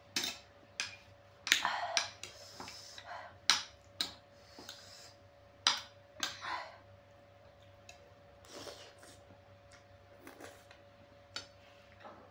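Metal spoon and fork clinking and scraping against a ceramic plate, a dozen or so sharp clicks, with noodles slurped in between.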